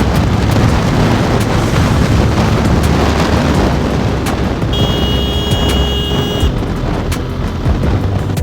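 Heavy wind buffeting on the microphone of a moving motorcycle, a loud low rumble with scattered clicks. About five seconds in, a steady high tone sounds for about a second and a half.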